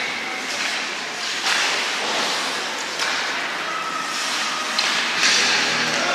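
Ice hockey play: skate blades scraping the ice, with a few sharp knocks from sticks and puck.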